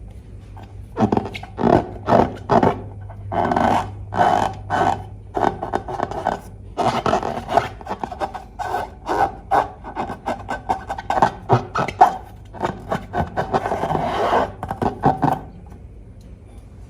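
Slime being mixed and worked, irregular sticky rubbing and rasping strokes that come and go in bursts, stopping about a second before the end.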